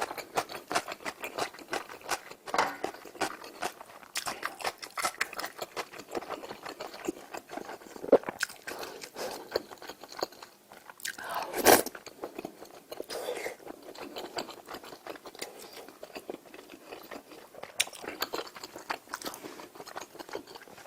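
Close-miked eating: steady chewing and crunching of food, with many small wet clicks and a louder knock about 8 seconds in and another about 12 seconds in.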